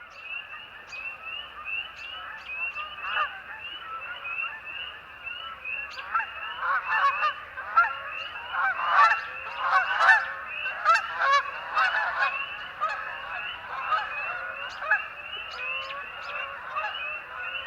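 A flock of geese honking, many calls overlapping and growing busier about six seconds in, over a steady, evenly repeated high chirping.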